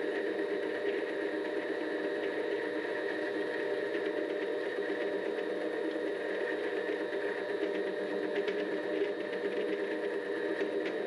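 Vevor 7x12 mini-lathe running steadily, a motor-and-gear hum with a few faint ticks.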